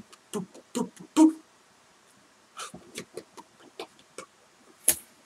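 A man's voice making a quick run of short "boop" sounds for about the first second and a half, then faint mouth noises and small clicks, with one sharp click near the end.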